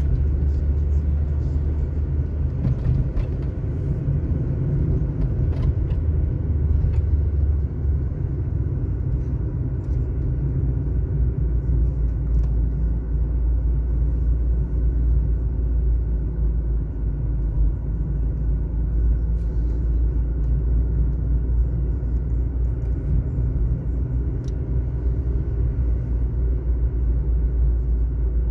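Car driving along at a steady speed: a low, steady rumble of engine and tyres on asphalt, with a few faint clicks.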